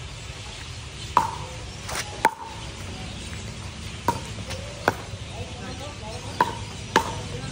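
Pickleball paddles striking a plastic ball in a rally: about seven sharp pops at uneven gaps of half a second to two seconds.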